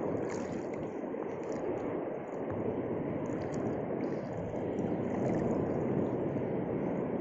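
Sea waves surging and washing over a shallow reef: a steady, unbroken rush of water, swelling a little louder about five seconds in.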